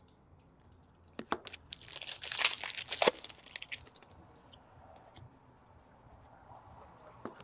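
Foil wrapper of a trading-card pack being torn open and crinkled. A few clicks come first, then a dense burst of tearing and crinkling about two to three seconds in, followed by faint handling of the cards.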